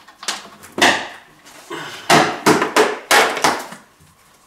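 Plastic paint bucket lid being pried off by hand: a run of about eight sharp plastic snaps and cracks as the rim's tabs pop free, ending once the lid comes away.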